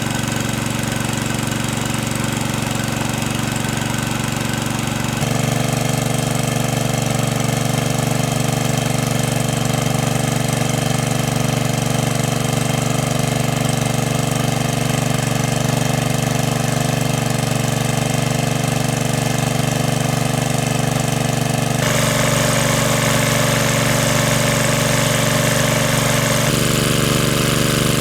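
Small boat engine running steadily at a constant speed, with a sudden change in its tone three times.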